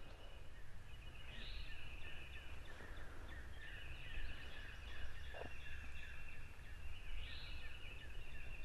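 Wild turkey gobbling twice, about six seconds apart, over a steady high-pitched trilling background in the woods at daybreak.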